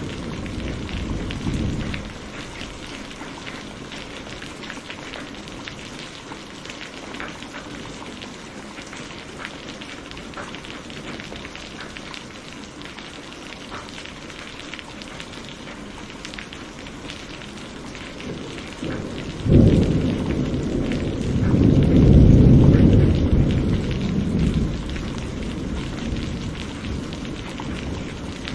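Steady heavy rain falling, with a low thunder rumble dying away in the first couple of seconds. About nineteen seconds in, a sudden thunderclap breaks into a long rolling rumble that swells for a few seconds and then fades.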